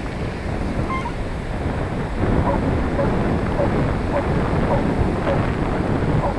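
Wind buffeting the microphone over a steady rush of beach surf, with faint short high chirps repeating from about two seconds in.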